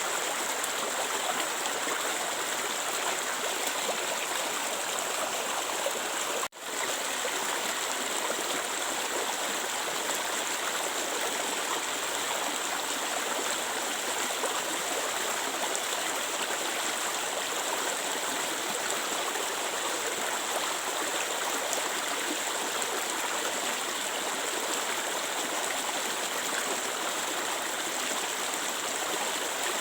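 Clear stream water flowing steadily over stones, with one brief dropout about six seconds in.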